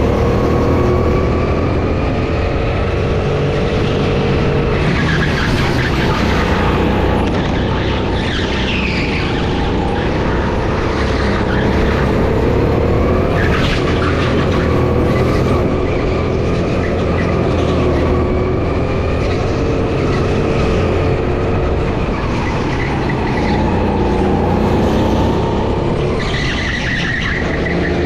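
Go-kart engine running hard on a race track, its pitch rising and falling as it accelerates and slows through the corners, with a few short high tyre squeals.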